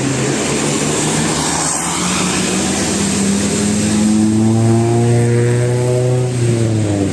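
A large bus driving past. Its engine note climbs and grows louder as it approaches, then drops in pitch about six and a half seconds in as it passes, over the rush of tyre and road noise.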